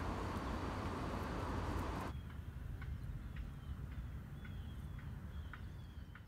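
Steady street traffic noise that cuts off about two seconds in. A low outdoor rumble follows, with a bird chirping repeatedly in short falling notes, about two a second.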